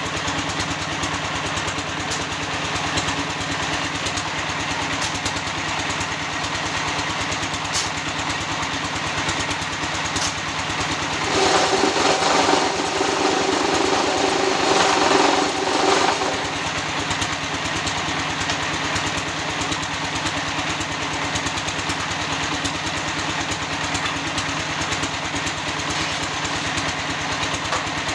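Concrete block (batako) press machine running in a trial after adjustment, its motor and vibrator giving a steady mechanical drone. About eleven seconds in it grows louder, with a steady hum, for some five seconds, then settles back.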